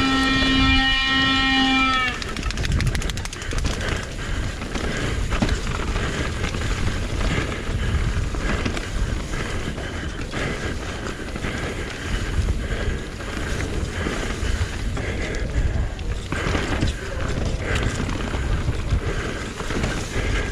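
Mountain bike ridden down a rough trail, heard from a helmet camera: tyres on dirt and rocks, chain and frame rattling with frequent knocks, and wind on the microphone. For the first two seconds a loud, steady pitched tone sounds over it, dipping slightly in pitch as it ends.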